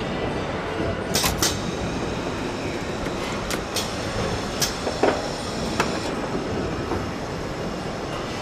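Car assembly line din: a steady hum of conveyors and machinery, with sharp clicks and clunks scattered through the first six seconds, two close together a little over a second in and two more around three and a half seconds.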